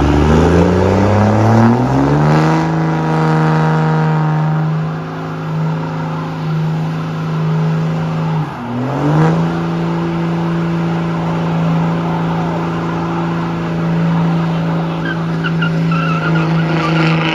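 Dodge Ram 4x4 pickup doing a burnout: the engine revs climb over the first couple of seconds and hold high while the tyres spin and squeal on wet pavement. The revs dip sharply about halfway through and pick straight back up.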